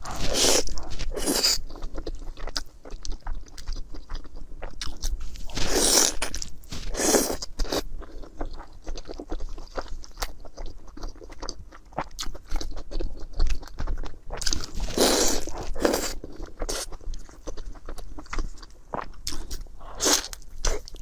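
Close-miked eating: a person chewing and biting food, with many small clicks and three louder, second-long bursts of eating noise near the start, about six seconds in, and about fifteen seconds in.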